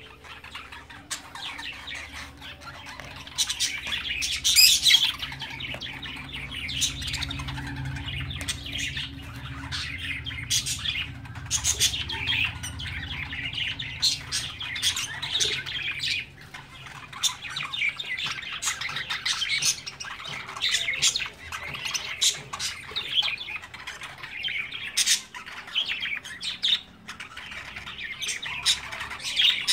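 Small parrots in an aviary, lovebirds among them, chirping and squawking in a dense run of short, sharp, high calls. A few louder squawks come about four to five seconds in.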